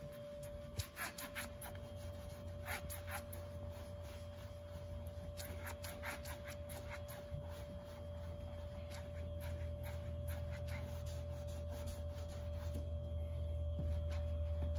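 Microfibre cloth rubbing over a pickup's painted tailgate in repeated wiping strokes, buffing off dried cleaner wax. A steady low hum and a faint constant tone run underneath.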